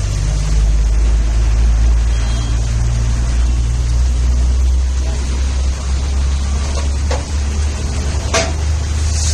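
A steady low rumble under a faint sizzling hiss of butter and tomato masala frying on a hot flat tawa, with a couple of light knocks near the end.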